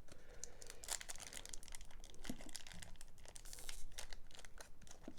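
Foil wrapper of a Pokémon card booster pack crinkling as it is handled and torn, a run of irregular crackles.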